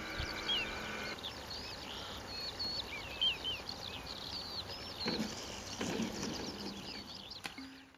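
Birds chirp and twitter throughout, over the steady drone of a radio-controlled model plane's engine, which stops about a second in as the plane comes in to land. Two short low rumbles follow midway, while the model is rolling on the grass.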